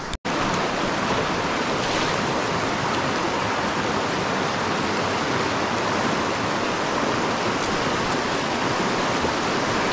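Steady rush of flowing water from a small mountain creek, with a very short dropout just after the start.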